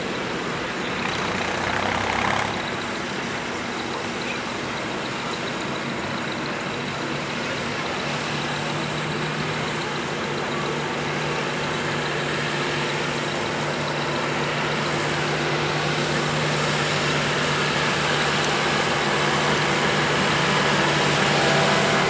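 Vintage tractor engine running steadily under heavy load as it drags a weight-transfer pulling sled. It grows slowly louder as the tractor comes closer.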